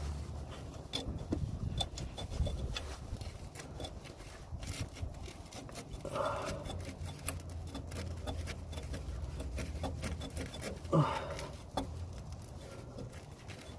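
Steel bolt rubbing, scraping and clicking against metal as it is wiggled into the strut's mounting hole, in irregular small ticks, with brief grunts twice.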